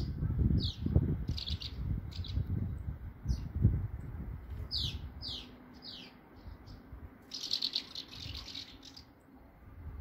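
Swallows twittering in flight: short, quick, downward-sweeping chirps in scattered groups, with a denser burst of twittering near the end. A low rumble underlies the first few seconds.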